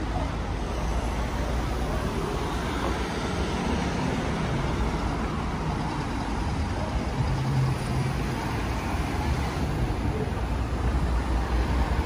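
Road traffic on the bridge roadway close by: cars and vans running past in slow traffic, a steady rumble of engines and tyres, with one engine hum standing out about seven seconds in.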